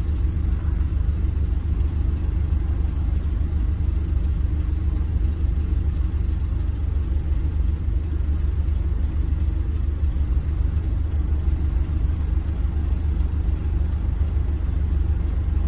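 Bus engine idling, heard from inside the passenger cabin: a steady low rumble that does not change.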